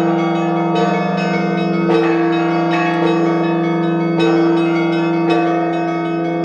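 Russian church bells ringing: several bells struck together in a rhythmic pattern about once a second over the long, steady ring of a deep bell.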